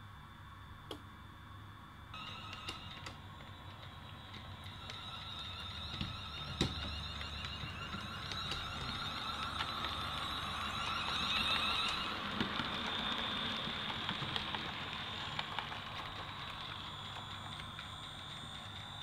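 OO gauge model train running past on the layout: a whining, wavering electric-motor drive with sharp clicks from the wheels over rail joints, growing louder to a peak about two thirds of the way in and then fading as it moves away.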